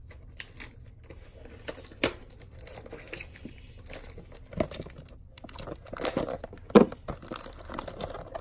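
Retail trading-card box packaging being torn and pried open: irregular crinkling and tearing with sharp snaps, the loudest about two thirds of the way in.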